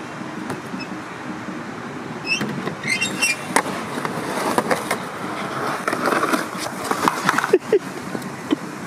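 Skateboard rolling on concrete, its wheels making a steady rumble, with several sharp clacks and knocks of the board along the way.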